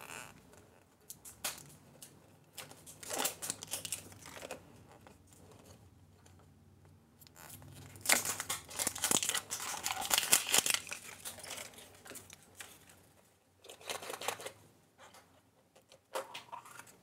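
Tearing and crinkling of a surprise egg's packaging as it is opened by hand, in irregular bursts, loudest and busiest about halfway through.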